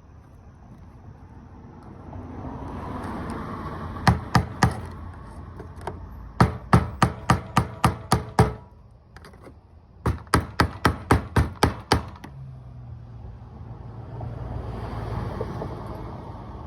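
Hammer blows driving the fuel pump locking ring back onto a 2005 Dodge Ram 1500's fuel tank. There are three strikes, then two quick runs of about nine blows each, roughly four a second.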